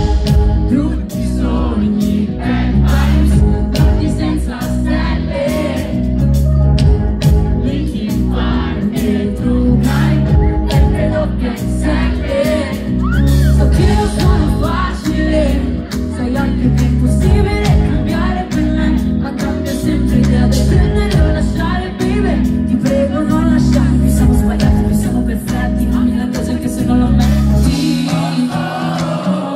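Live pop concert music over a PA: a heavy, pulsing bass and drum beat with singing on top. The bass drops out shortly before the end.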